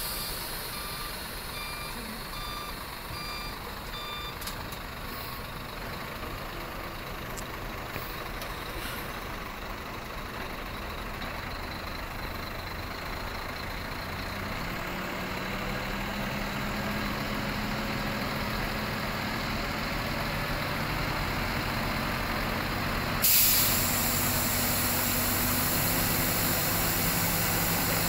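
Tipper dump truck's reversing alarm beeping for the first few seconds over its idling diesel engine. About halfway through, the engine settles into a higher, steady note as the hydraulic hoist lifts the loaded tipper body. Near the end a loud air hiss starts suddenly and keeps going.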